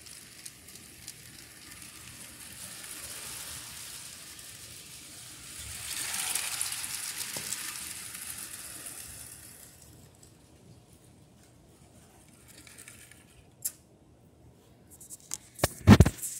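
Lego train running on plastic track: a whirring rattle of motor and wheels that grows louder, peaks, then fades away. Near the end come a few loud plastic knocks and clicks as Lego pieces and the camera are handled.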